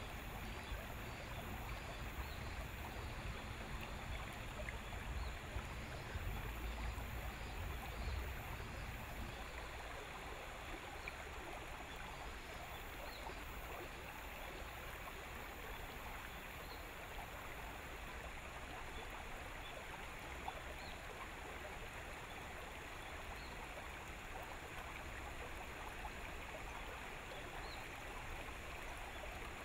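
Steady rushing water sound, with a low rumble that drops away about nine seconds in. Faint short high chirps repeat every second or so.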